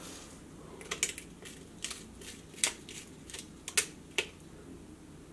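Pepper shaker shaken over a bowl of soup: an irregular run of sharp clicks and taps, about a dozen over three seconds, starting about a second in.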